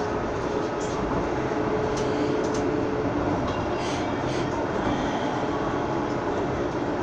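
Toronto streetcar heard from inside, with the steady rolling and running noise of the car on its rails. A steady motor whine stops about three seconds in and a lower hum carries on, with a few faint clicks.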